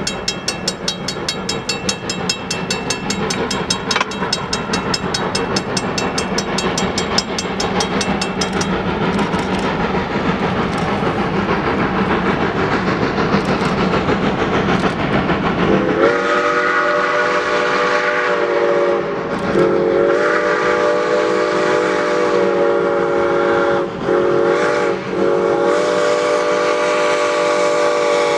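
Norfolk & Western M-class 4-8-0 #475 steam locomotive approaching under power, its exhaust chuffing and growing louder. About halfway through, its steam whistle blows a chord in a long, long, short, long pattern, the standard grade-crossing signal.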